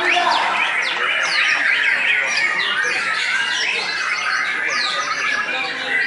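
Many caged white-rumped shamas singing at once in a songbird contest: a dense, unbroken chorus of rapid overlapping whistles, chirps and quick sliding notes.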